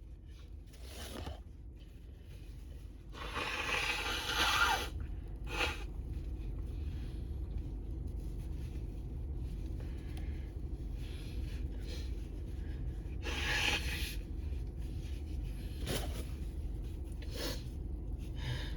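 A person sniffing and breathing noisily between sneezes: several short sniffs, with longer, louder breaths about three to five seconds in and again near the two-thirds mark, over a low steady room hum.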